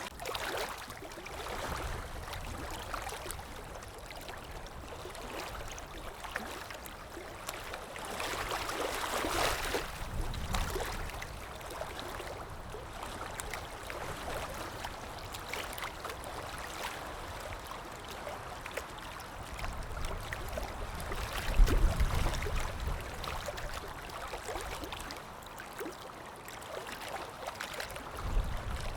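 Stream water running and gurgling steadily, with a few swells and a brief low rumble about 22 seconds in.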